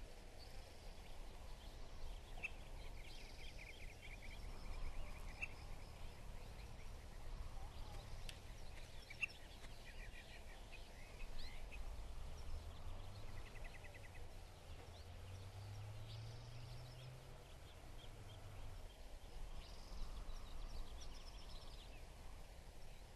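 Outdoor ambience: small birds chirping in short, high trills every few seconds over a faint steady background noise, with a low distant rumble that swells and fades around the middle.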